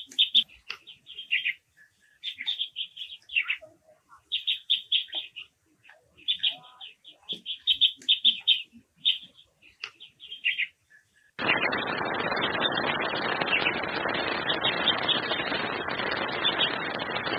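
Japanese waxwings giving high, thin trilled calls in short runs, one run every second or so. About eleven seconds in the sound cuts abruptly to a steady rushing noise, with faint trills still heard above it.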